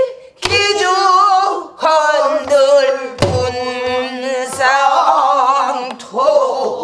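A woman singing a pansori-style danga, holding long notes with wide, wavering vibrato. She beats the rhythm herself with a few stick strokes on a buk barrel drum.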